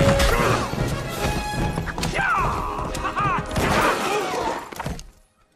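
Animated film action soundtrack: orchestral chase music with crashes and knocks, and a few short high cries, cutting off abruptly about five seconds in.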